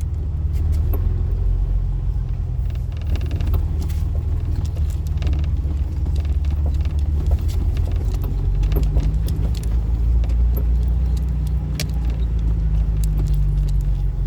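2004 Jeep Wrangler driving at a steady pace, heard from inside the cab: a steady low engine and road rumble, with scattered light clicks and rattles.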